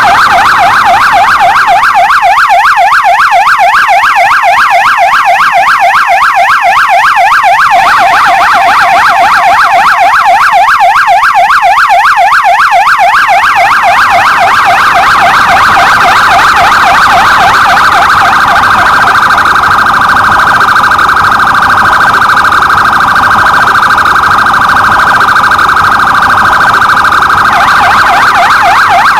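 Police patrol car siren sounding a fast warble, its pitch swinging up and down about four times a second. Partway through, the swing flattens into a steadier tone, and the fast warble comes back near the end.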